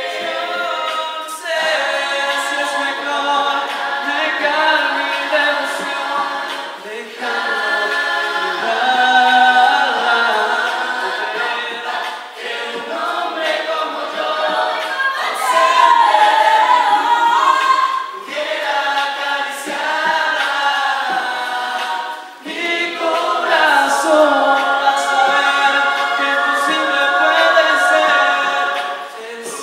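A rondalla ensemble singing in chorus, many voices together, with a lead singer out front. The voices drop back briefly a few times between phrases.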